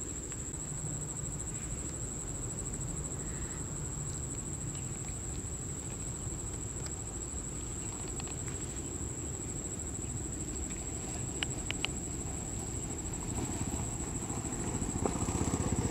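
Outdoor background: a steady high-pitched whine over a low rumble, with a few faint clicks, while a baby macaque drinks from a bottle. Near the end an engine, like a motorcycle's, grows louder.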